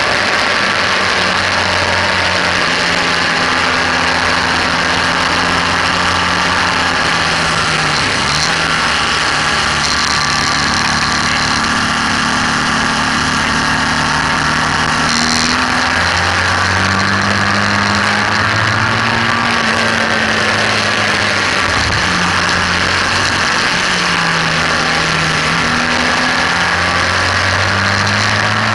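BMW R1200S boxer twin engine running hard on a race track, its pitch rising and falling with the throttle and gear changes, with sharp dips about eight and twenty-two seconds in. Heavy wind rush on the fairing-mounted camera runs underneath.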